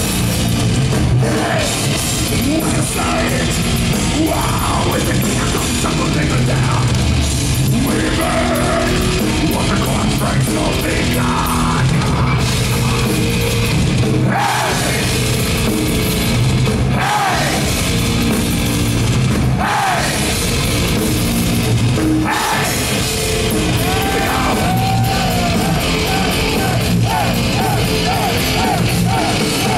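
Death metal band playing live, loud and unbroken: distorted guitars over a pounding drum kit.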